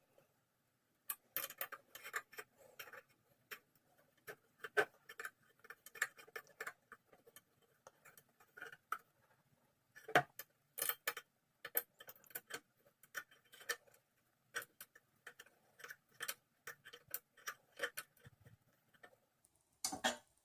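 Irregular light clicks and taps of a hex key and small screws working into the printer's plastic parts, with one louder tap about halfway through.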